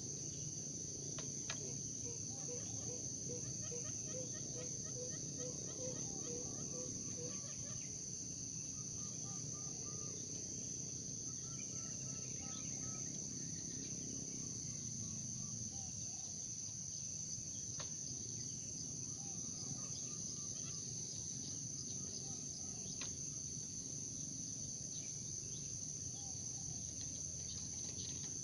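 Outdoor soundscape with a steady high-pitched insect chorus throughout. Over it a bird gives a series of low, evenly spaced notes, about two a second, for several seconds near the start, and short chirping phrases follow later.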